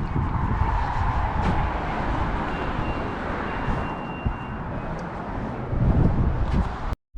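Car on the move: steady road and engine noise with a low rumble, cut off abruptly for a moment near the end.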